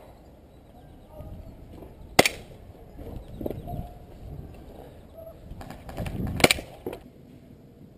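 Airsoft guns firing: one sharp crack about two seconds in, then a quick string of shots around six seconds, with one more shortly after.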